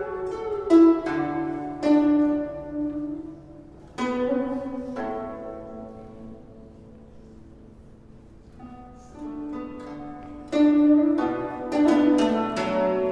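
Background music of plucked string notes, each starting sharply and ringing away. It thins to a few soft, fading notes midway, then picks up again about two-thirds of the way through.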